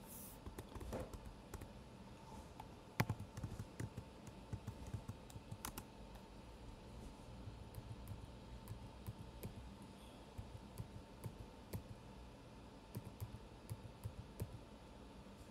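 Typing on a computer keyboard: soft, irregular key clicks in uneven bursts, with a faint steady hum underneath.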